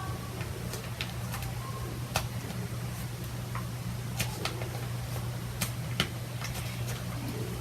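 Scattered, irregular sharp clicks and ticks from handling the sticky peel-off face mask and its container, over a steady low hum.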